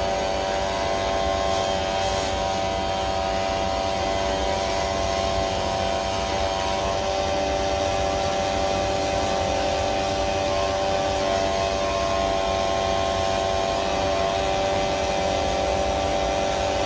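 AC TIG welding arc on aluminium, a steady buzzing hum that runs on without a break.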